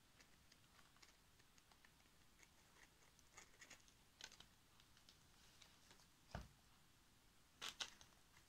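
Faint crafting handwork: small clicks and rustles as dried berries are glued and pressed onto a woven wreath base with a hot glue gun, with a soft knock a little past six seconds and two sharper clicks near the end.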